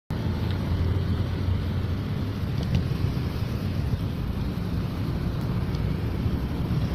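Steady low rumble of outdoor street ambience: wind buffeting the microphone over distant road traffic.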